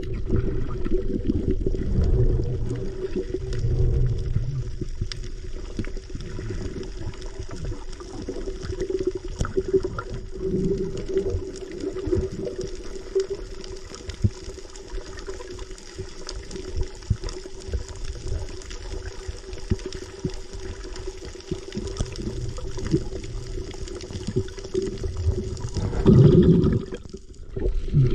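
Water sloshing and gurgling around the camera, in or under the sea during a freedive, with a steady low hum underneath and scattered small clicks. Near the end there is a louder surge of water, then a brief sudden drop-out.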